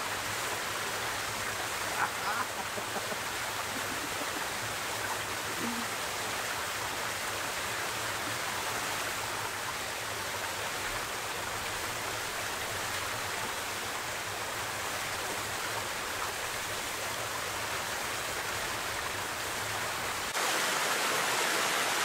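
Small rocky forest creek rushing steadily over stones and little cascades, with a brief knock about two seconds in.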